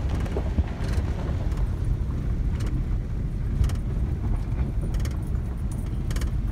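Car driving on a gravel road, heard from inside the cabin: a steady low rumble of tyres and engine, with scattered short clicks and knocks.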